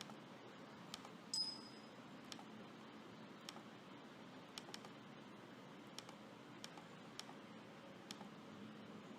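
Sparse computer mouse clicks, about one every second, over faint room hiss; one louder click with a short high ring comes about a second and a half in.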